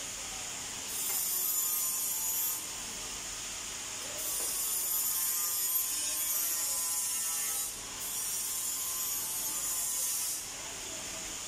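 Three long bursts of high hissing, rasping noise from work at a workbench, each lasting a few seconds, over a steady workshop background. The first begins about a second in and the last stops about a second before the end.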